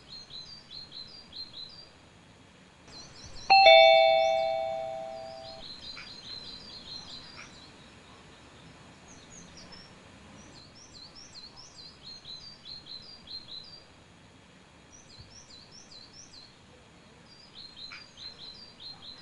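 Small birds chirping in quick repeated phrases, with a single loud bell-like ding about three and a half seconds in that rings and fades over about two seconds.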